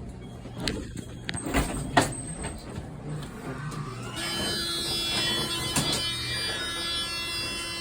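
Otis Series 1 elevator in operation: a few knocks and clunks, the loudest about two seconds in, as its doors slide. About four seconds in, a steady hum sets in and holds.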